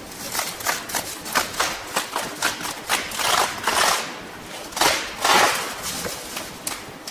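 Hands handling white tubes on a workbench: a string of sharp clicks and taps, with two longer bouts of rustling and crinkling about three and five seconds in, the second the loudest.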